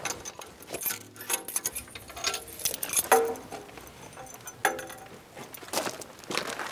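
Keys jangling and clicking in the lock of a heavy steel armoured bunker door, with scattered metallic knocks and two short creaks, about three seconds in and again a second and a half later.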